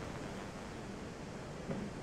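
Steady rushing rumble of a Falcon 9 first stage in flight, its nine Merlin 1D engines firing at full power, heard through the rocket's onboard feed, with a brief thump near the end.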